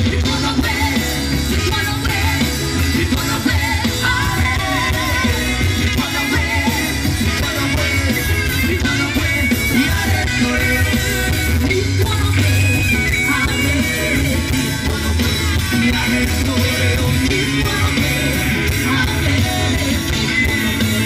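Live reggae band playing, with bass guitar, drums and guitars under sung vocals.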